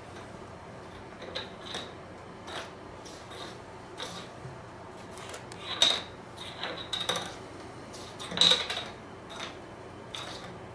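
A cat at play on a wooden floor: scattered light clicks, taps and rattles, with two louder clatters about six and eight and a half seconds in.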